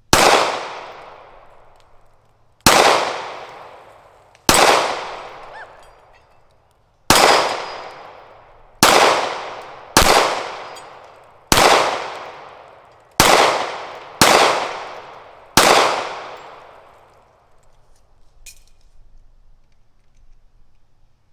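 Ten shots from a 9mm semi-automatic pistol, fired one to two and a half seconds apart, each with a long fading echo; hits on a steel plate rack clang along with the shots. A faint click follows a couple of seconds after the last shot.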